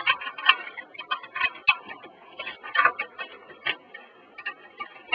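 Screwdriver working out the mounting screws of a CD drive in a desktop computer case: irregular clicks, several a second.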